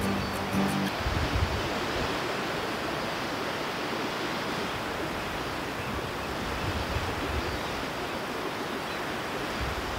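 Ocean surf washing steadily onto a rocky shore, an even rushing noise, with wind rumbling on the microphone.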